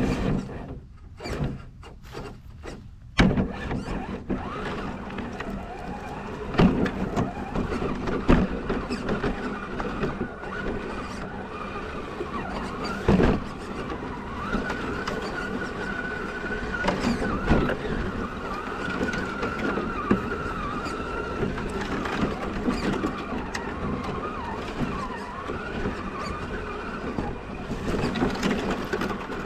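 Element RC Enduro Trail Runner scale crawler's electric motor and geartrain whining, the pitch wavering up and down with the throttle, with several sharp knocks as the truck works over the trail. Heard close up from a camera mounted on the truck itself.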